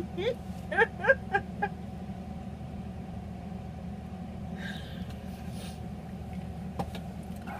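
Several short, high, rising squeals of stifled laughter in the first second and a half, then a steady low room hum.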